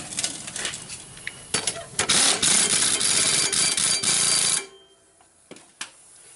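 Ratchet wrench clicking rapidly while tightening a push mower's blade bolt. The clicking starts about two seconds in, after some light metal handling clicks, and stops abruptly a couple of seconds later.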